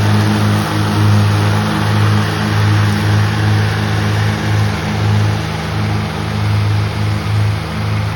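Lawn mower engine running steadily at constant speed, its low hum wavering slightly in a regular rhythm.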